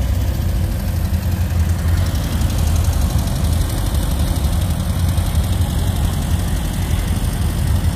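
Car engine idling close by: a steady low rumble.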